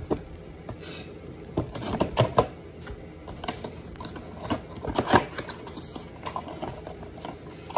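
Cardboard product box being handled and opened: irregular clicks, taps and scrapes of the box and its flaps, loudest around two seconds in and again around five seconds in.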